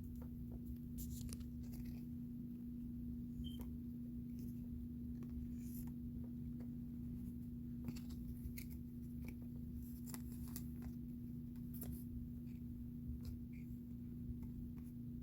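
Faint, scattered clicks and light rustles of small objects being handled, over a steady low hum.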